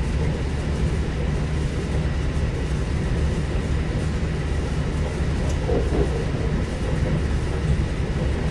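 Lastochka (Siemens Desiro) electric multiple unit heard from inside the carriage, running at high speed: a steady low rumble of wheels and running gear, with a faint steady whine.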